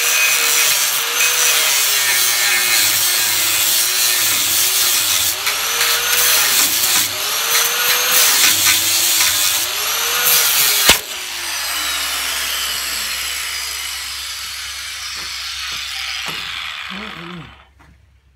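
Angle grinder cutting through a steel tongue, its motor pitch dipping and recovering again and again as the disc bogs in the cut. About eleven seconds in it is switched off and spins down, fading away over several seconds.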